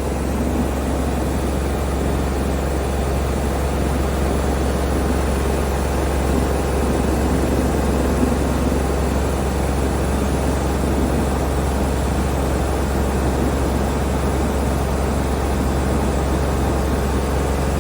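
Sullair 185 portable air compressor's diesel engine running steadily at idle, switched from run back to start as the step before shutdown.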